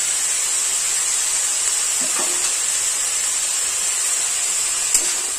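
Boiled grass pea greens sizzling in a hot steel wok, a steady hiss of steam and frying, with a light click near the end.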